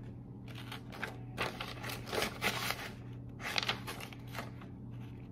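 Scissors cutting through a sheet of paper: irregular snips and paper rustling, most busy from about a second and a half in and again a little past the middle.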